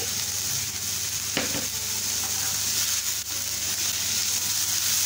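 Chopped onions sizzling steadily in hot oil in a non-stick frying pan while being stirred with a wooden spatula, with a couple of short scrapes of the spatula in the pan.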